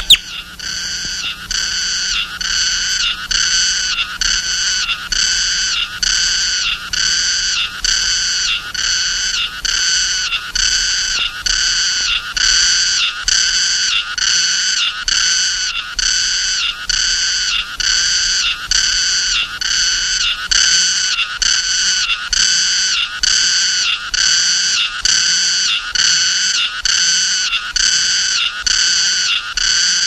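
Cicada singing: a loud, rasping buzz pulsing about twice a second, kept up evenly throughout. A single sharp click comes right at the start.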